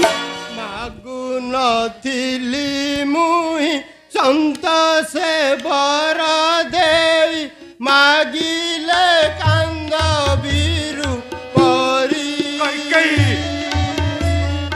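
Indian classical-style music: a melody with ornamented slides and wavering pitch over tabla strokes, the drumming heavier in the second half.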